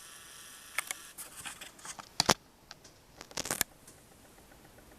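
Clicks and knocks of a camera being handled and repositioned to a closer shot, with one loud sharp click about two seconds in and a short cluster of knocks a second later. A faint steady high hum stops at the loud click.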